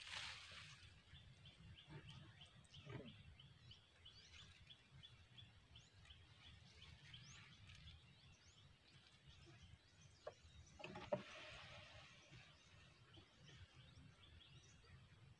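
Near silence: faint outdoor ambience with a quick, even run of tiny high chirps for the first several seconds and scattered faint bird calls. A single sharp click comes about eleven seconds in.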